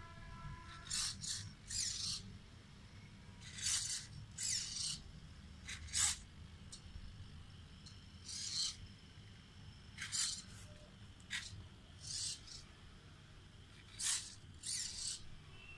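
Small blue hobby micro servos pulling the string tendons of a homemade bionic hand's fingers: each move gives a short, high-pitched buzzing whir of the servo gears, repeating irregularly about fifteen times.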